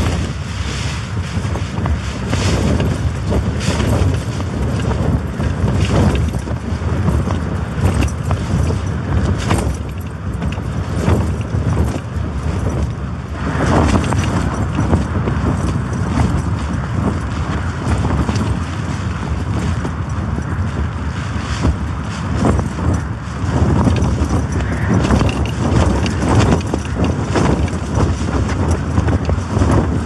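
Storm-force wind buffeting a Hilleberg tent, heard from inside: the fabric flaps and rattles in irregular gusts over a constant low rumble.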